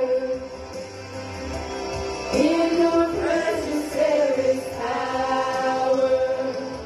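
Group of voices singing a gospel worship song in long held notes. This is singing during a church service.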